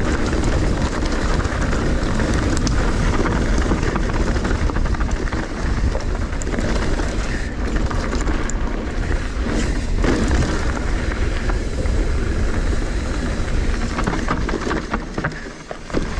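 Trek Slash 8 full-suspension mountain bike descending a dry dirt trail at speed: a steady rumble of knobby tyres over dirt and small stones, with scattered clicks and rattles from the bike over the bumps. It quietens briefly near the end.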